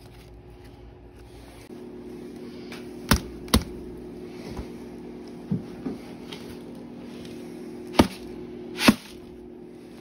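Two pairs of sharp knocks, about three seconds in and again near the end, over a steady hum that comes on about two seconds in.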